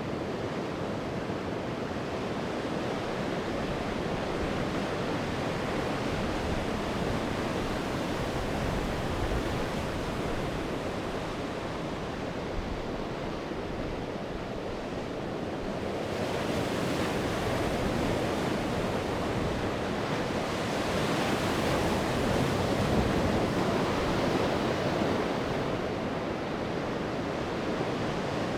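Sea waves breaking and washing on the shore, a steady surf with a bigger wave surging up about halfway through and easing off a few seconds before the end. Some wind is mixed in.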